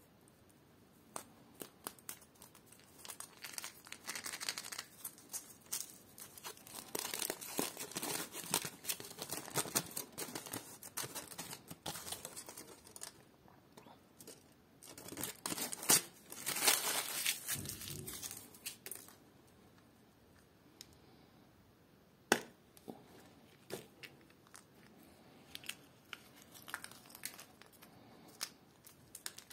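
Thin foil wrapper of a chocolate surprise egg crinkling and tearing as it is handled and peeled off, in two long bursts. In the later part there are only scattered light clicks and taps, one of them sharper.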